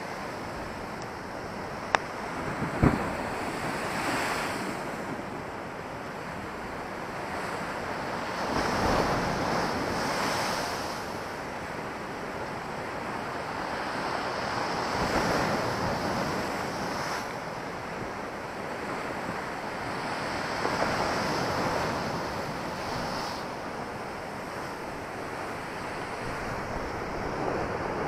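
Storm surf on the Black Sea surging and breaking against a stone sea wall. The noisy wash swells and ebbs every five or six seconds, with wind on the microphone. Two sharp knocks come about two and three seconds in.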